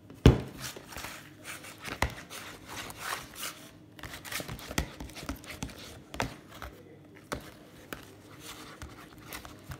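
Glue-and-laundry-detergent slime being mixed in a bowl: irregular clicks, taps and scrapes, with a sharp knock just after the start and another about two seconds in.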